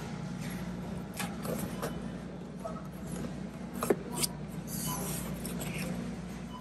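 Cardboard product box being handled and set on a store shelf: a few light knocks and clicks, the loudest about four seconds in, over a steady background hum.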